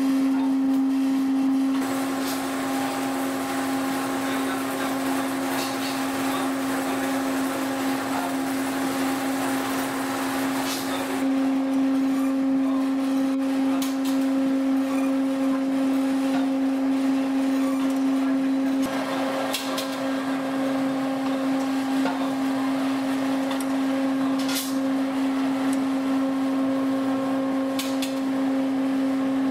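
Noodle-making machine running, its electric motor giving a steady hum over a light mechanical clatter, with a few sharp clicks.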